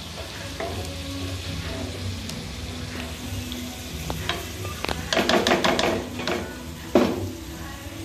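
Spatula stirring and scraping thick white sauce in a non-stick pan, with a quick run of scrapes about five seconds in and a sharp knock against the pan near seven seconds.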